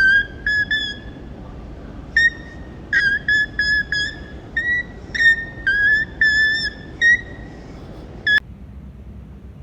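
A run of short, high whistled notes, mostly on one or two pitches with slight slides between them, that breaks off abruptly near the end.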